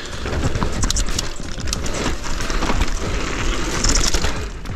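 Mountain bike riding down a rooty dirt trail: tyres crunching over dirt and roots, with many quick knocks and rattles from the bike as it hits bumps, over steady wind rumble on the microphone.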